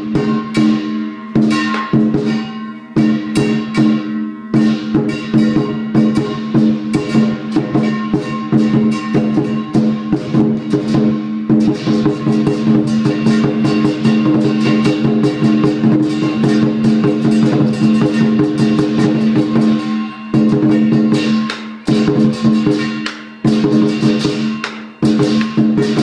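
Lion dance percussion: a large drum beaten in a fast, dense rhythm with crashing cymbals and a ringing gong, breaking off briefly a few times in the last third.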